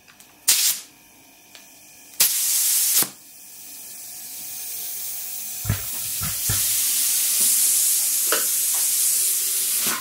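Compressed air hissing through a tyre inflator gun and its hose at a car tyre valve: two short bursts, then a long hiss that grows louder over a few seconds and holds steady, with a few light knocks.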